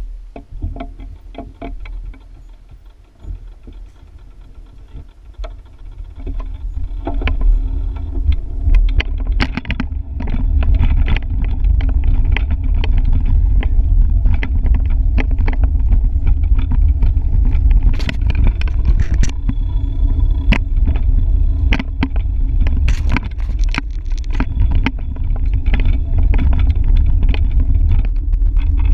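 Wind buffeting the microphone of a bike-mounted camera as a bicycle rolls along, a low rumble that grows louder over the first ten seconds as the bike picks up speed and then holds steady. Scattered clicks and rattles come from the bike over the road.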